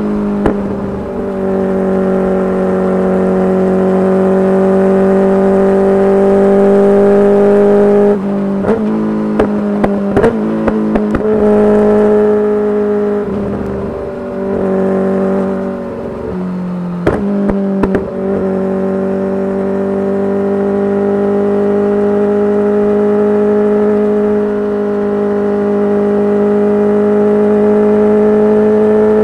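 Kawasaki Ninja H2's supercharged inline-four through a full titanium exhaust, holding a steady engine note. In the middle stretch the engine note shifts and dips several times, with a handful of sharp exhaust pops, then settles back to a steady note that slowly climbs toward the end.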